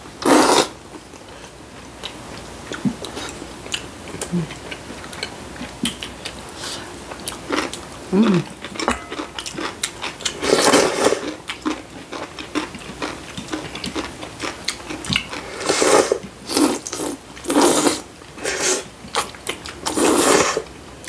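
Slurping of hot kalguksu (knife-cut wheat noodles) from bowls: several loud drawn-in slurps, with chewing and small clicks between.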